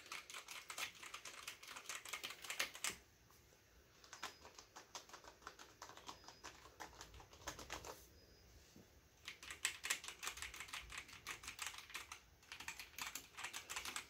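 Typing on two mechanical keyboards in turn, the older Alienware AW768 and the new Alienware 510K: the 768 is a little more clicky and the 510K a little quieter. Two stretches of rapid key clacking, with sparser, softer keystrokes between them.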